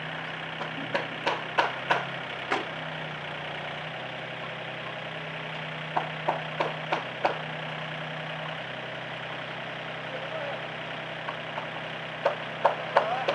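Heavy vehicle engine idling steadily, its note shifting slightly a couple of times, with short runs of sharp metallic clicks and knocks near the start, in the middle and near the end.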